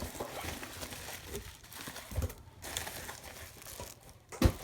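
Packaging crinkling and rustling as wrapped doll parts are handled and unwrapped, with a soft thump about two seconds in and a louder knock near the end.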